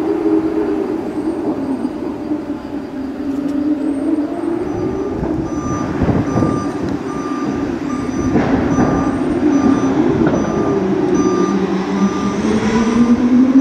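Recovery crane's diesel engine running under load, its pitch wandering up and down, with a warning beeper sounding short repeating beeps from about halfway through as it lifts a crashed racing car.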